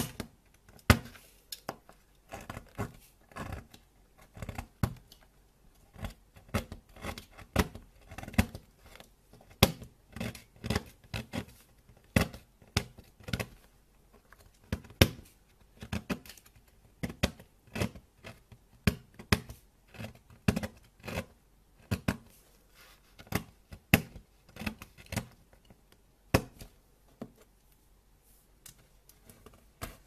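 A craft knife blade cutting and crumbling dry, brittle soap: sharp crunchy crackles in quick, irregular clusters, thinning out near the end.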